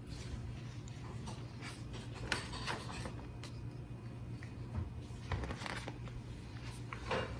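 Paper and plastic items being handled during an unboxing: scattered rustles and light taps, the loudest near the end, over a low steady hum.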